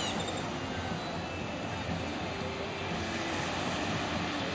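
Steady rushing of small waves breaking on a sandy beach, with wind on the microphone and a faint engine drone underneath.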